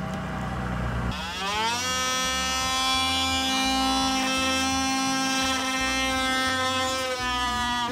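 Battery-powered oscillating multi-tool undercutting door trim and wall at floor level. It starts about a second in with a rising whine, then runs at a steady high pitch and dips slightly near the end.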